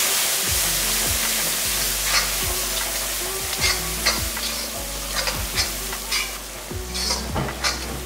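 Onion-tomato masala sizzling in hot oil in a pan, stirred with a spatula that scrapes the pan in short, irregular strokes.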